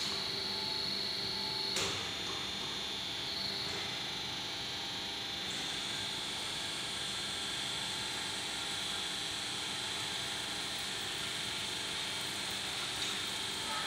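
Electric hydraulic power pack of a drum lifter running with a steady hum and a high whine, with a single sharp click about two seconds in.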